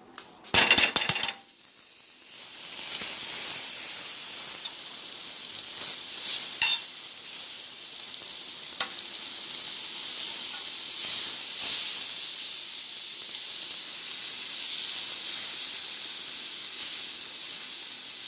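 A pat of butter going into a hot frying pan and sizzling as it melts, greasing the pan for pancakes. There is a short loud burst about a second in, then a steady sizzle with a few light taps and scrapes of the spatula.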